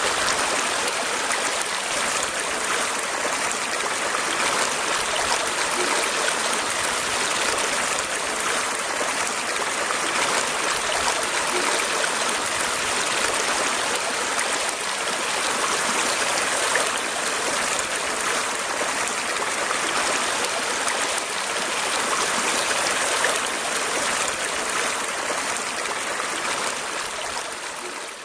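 Running water flowing steadily, a continuous splashing rush like a stream, fading out near the end.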